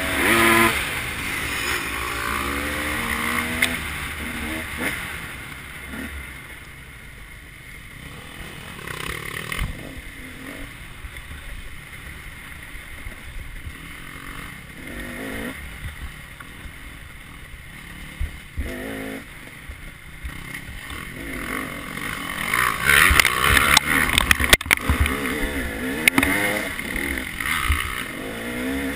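Dirt bike engine heard from the rider's own bike, revving up and down as it rides a rough trail. It is quieter through the middle stretch and louder again near the end, with a few sharp knocks from the bike over rough ground.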